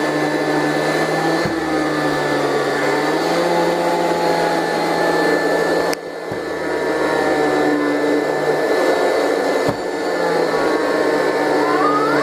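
Vacuum cleaner running steadily with an even motor hum and airflow hiss. The level dips briefly about six seconds in.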